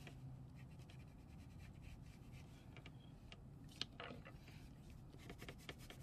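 Faint scratching and rubbing of a wax crayon on paper, with a short click a little under four seconds in.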